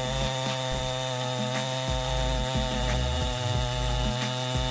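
Two-stroke chainsaw engine running steadily at high revs with an unchanging pitch, as during a cut.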